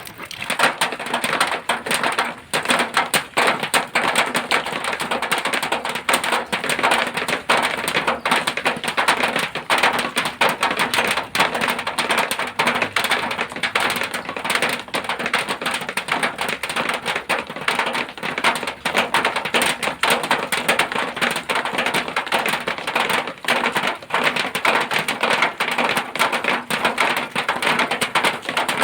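Rain falling on zinc sheeting: a dense, steady patter of rapid sharp taps on the metal.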